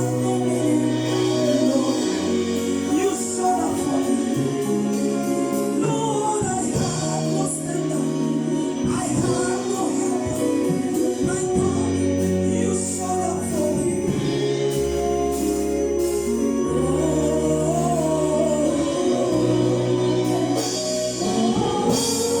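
Gospel choir singing with a band, over a bass line that steps from one held note to the next and steady percussion hits.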